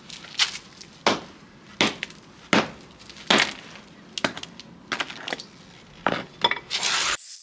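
A run of sharp clacks, about one and a half a second, then a steady hiss that starts near the end.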